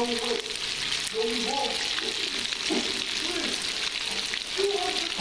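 Floured chicken pieces deep frying in hot oil in a skillet: a steady, dense crackling sizzle.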